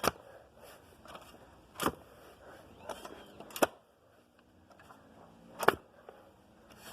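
Post-hole digger striking into the soil: four sharp thuds, about one every two seconds.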